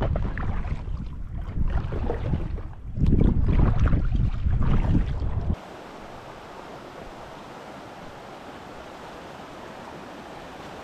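Wind buffeting the microphone in heavy gusts over water on open water. About five and a half seconds in it cuts abruptly to a steady, even hiss.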